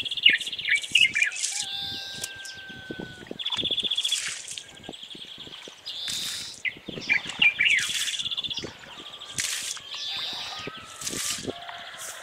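Several small birds chirping and trilling together, rapid buzzy trills and short chirps overlapping throughout, with a few short bursts of hiss in between.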